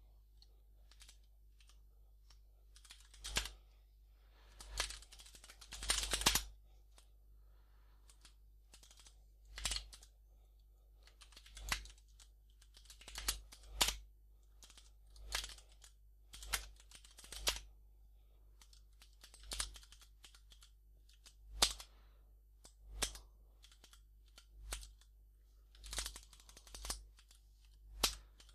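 Computer keyboard keystrokes in scattered single taps and short runs, with a pause of a second or two between them.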